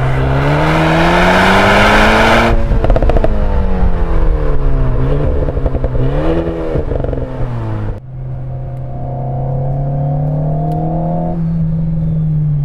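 Alpine A110's 1.8-litre turbocharged four-cylinder engine and exhaust, heard at the tailpipe: the revs climb under heavy throttle, the loud throttle noise cuts off about two and a half seconds in with a rattle of exhaust crackles, then the revs fall and rise again through the bends. About eight seconds in the sound switches to inside the cabin, where the engine pulls more quietly with a slowly rising note.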